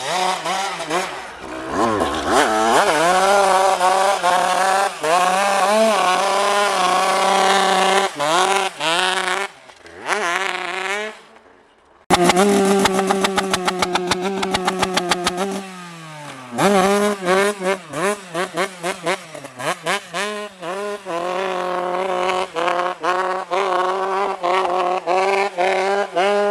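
Dirt bike engine revving hard, its pitch rising and falling repeatedly as the rider accelerates, shifts and backs off. It drops away briefly near the middle and comes back abruptly, then keeps revving up and down.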